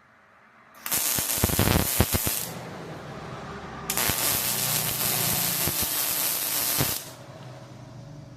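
MIG welder (Prime Weld MTS 200) laying two beads of weld: a steady crackling hiss of the arc with sharp pops in it. The first runs about a second and a half, starting just under a second in. The second runs about three seconds, from about four seconds in, and stops suddenly.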